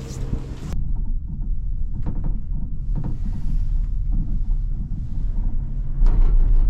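Wind buffeting a GoPro microphone: a heavy, gusting low rumble that surges about six seconds in.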